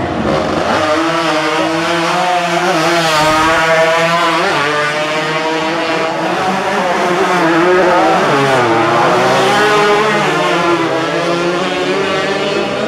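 Racing motorcycle engines revving hard as several bikes ride past, their pitch rising and falling over and over as the riders shift and throttle.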